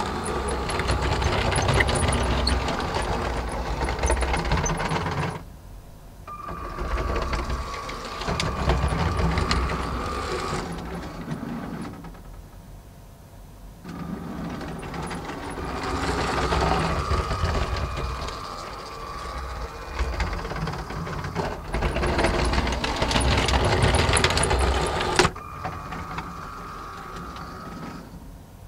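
Lego Powered Up train motors running, with a steady whine and wheels rattling on plastic track. The sound drops away briefly about five seconds in and again around twelve seconds as the trains stop at track sections and start again.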